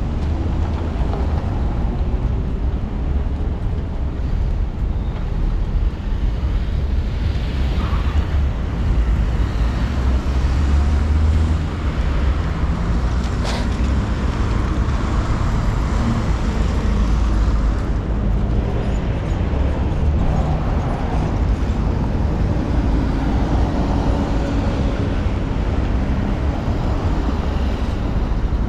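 City street traffic: cars driving past over a steady low rumble, with one sharp click about halfway through.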